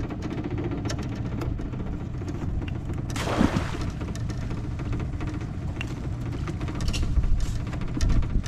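A round mesh crab pot thrown from a boat splashes into the water about three seconds in. Small clicks and creaks of gear sound around it, over a steady low rumble.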